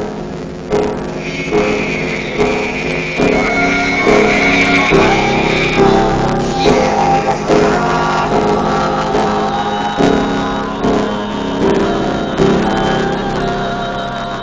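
Live music: chords struck in a steady rhythm with a voice singing over them.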